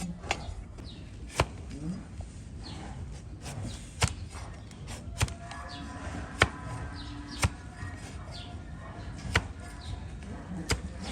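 Sharp cutting snaps from a donkey's hoof being trimmed, about eight separate cuts spaced a second or more apart.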